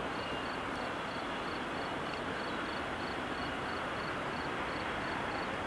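Steady rushing outdoor background noise with no distinct event, with a faint high-pitched tick repeating about four times a second.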